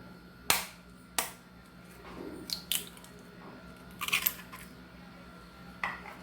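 An egg being cracked: two sharp taps about half a second apart near the start, then a few lighter clicks and knocks.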